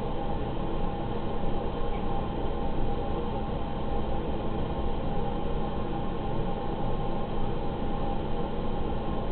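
Steady rumbling background noise with a constant hum running through it.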